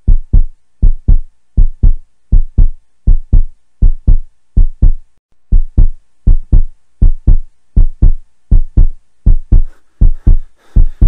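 Heartbeat sound effect: paired low thumps (lub-dub) repeating evenly, about 80 beats a minute. Near the end a faint hiss starts to rise underneath.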